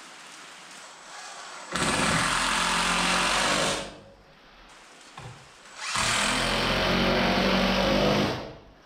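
A power tool running in two bursts of about two seconds each, with a steady motor pitch, separated by a pause of about two seconds.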